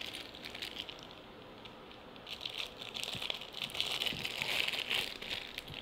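Padlock packaging crinkling and rustling as it is handled and opened, with small light clicks, getting busier about two seconds in.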